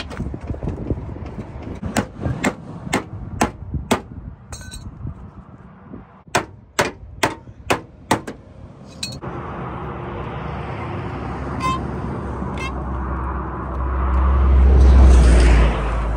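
Hammer blows on a truck's torn steel inner fender, about two sharp metallic clangs a second, beating the blowout-damaged metal back out of the wheel well. After about nine seconds the clangs stop and a steady rushing noise takes over, with a low rumble that swells loud near the end and then drops off suddenly.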